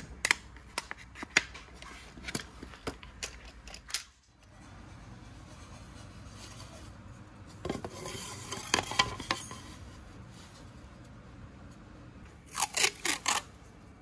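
Sharp, irregular clicks and knocks as a steel F-clamp and a wooden block are handled, then wood-on-wood rubbing and knocks as a thin plywood sheet is moved. Near the end there is a quick run of four or five loud rips as masking tape is pulled off its roll.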